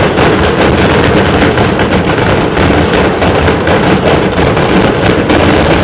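A dense, continuous barrage of firecrackers and fireworks: many rapid pops and crackles over a steady noisy rumble.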